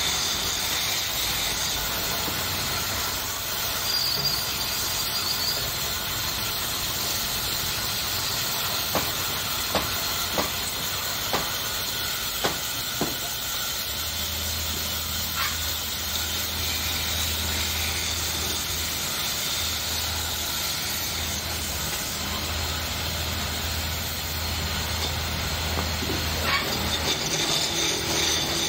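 Wood lathe and workshop running with a steady hiss. A few sharp clicks come in a quick run midway, and a low hum joins about halfway and stops shortly before the end.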